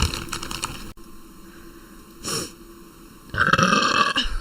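A woman burping several times: a rough burp at the start, a short one about two seconds in, and a longer, louder, more pitched one near the end.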